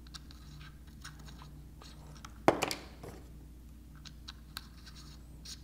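Small plastic clicks and scrapes as the DJI Mavic 2 remote controller is handled and a control stick is worked out of its storage slot, with one sharp click about two and a half seconds in.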